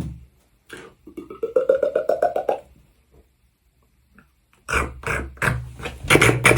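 Beatboxer's vocal sound effect: a rapid pulsing croak that rises in pitch for about a second and a half, then, after a pause, sharp clicks and low kick-drum beats starting near the end.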